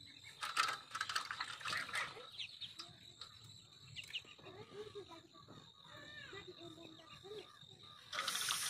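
Chickens clucking softly on and off, with a thin steady high-pitched whine underneath and a few scratchy rustles in the first two seconds.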